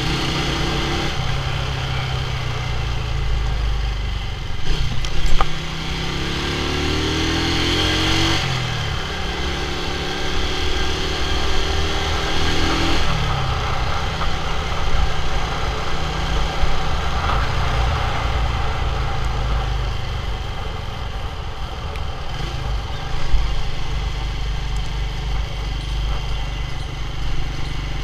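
Small motorcycle engine running under way, its pitch rising through the gears in a few sweeps and dropping at each shift, with wind and road rush on the microphone. A brief loud knock about five seconds in.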